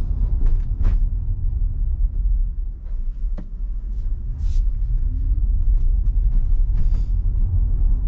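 Low, steady road rumble of a Tesla Model Y rolling slowly, with no engine note, dipping a little in the middle as the car slows almost to a stop. A few faint ticks and one sharp click about three and a half seconds in.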